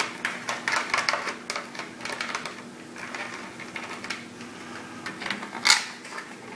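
Hard plastic speaker shells of a 1960s portable record player being handled: a busy run of small clicks, taps and scrapes as a speaker is taken off and its wire pulled free, with one sharper click near the end.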